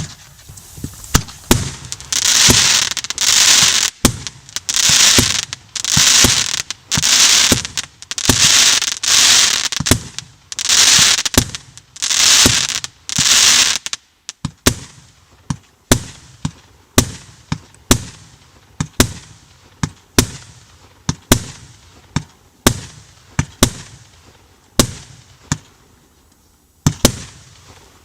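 A 130-shot, 30 mm (1.2-inch) firework battery firing in quick succession. For the first half, each shot is followed by a loud hissing burst lasting about a second. From about halfway, it changes to single sharp bangs a little more than once a second.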